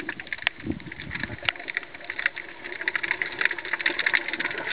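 Underwater ambience on a rocky reef: a dense, steady crackle of many small clicks, with a few dull, muffled knocks and water movement.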